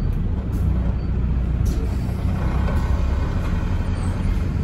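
Alexander Dennis Enviro400 double-decker bus's diesel engine running steadily, heard on board as a low drone under cabin and road noise, with a sharp tick about one and a half seconds in.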